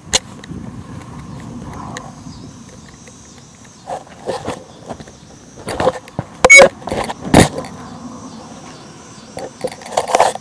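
Handling noise from a small camera being carried, covered and set down: irregular knocks, bumps and rustles, the loudest a little past halfway and a few more near the end, over a low steady hum.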